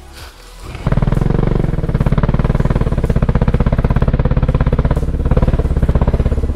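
Dirt bike engine running at a steady idle with an even, fast firing pulse. It comes in abruptly about a second in.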